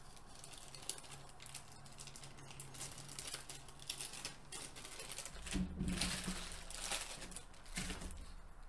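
Clear plastic bag crinkling and crackling in the hands as a bagged sprue of clear plastic parts is handled and put away. The crackles come thick and irregular, busiest and loudest in the second half.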